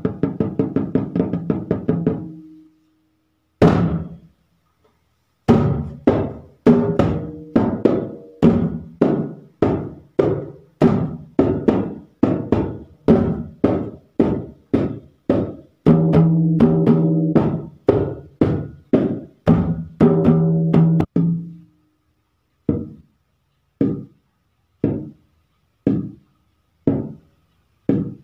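Dholak, a two-headed barrel hand drum, played with bare hands: a fast roll that stops about two seconds in, a pause, then a steady beat of about two strokes a second with a low ringing bass tone under it for a few seconds past the middle. Toward the end the strokes thin out to about one a second.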